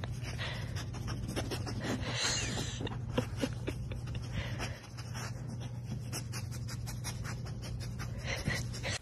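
A dog panting, over a steady low hum and scattered short clicks; it all cuts off suddenly at the end.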